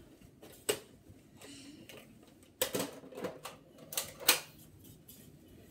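Scattered sharp plastic clicks and knocks, about seven of them, mostly bunched together past the middle, as a plastic toy Captain America shield is swung and handled.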